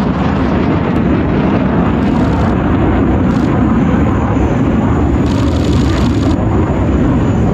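Jet aircraft noise overhead: a loud, steady rush of engine sound from a display jet in flight.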